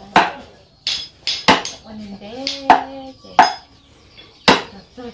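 Cleaver chopping chicken on a thick round wooden chopping board: a series of sharp, uneven chops, about seven in all.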